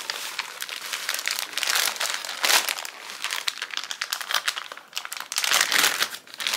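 Thin plastic packaging crinkling and rustling as hands pull small plastic bags of beads out of a clear plastic shipping bag, with louder crackling surges about two and a half seconds in and again near the end.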